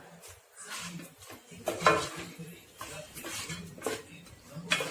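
A spoon scraping and knocking around a cooking pan as chicken pieces and ground masala are stirred together, in a few uneven strokes about once a second.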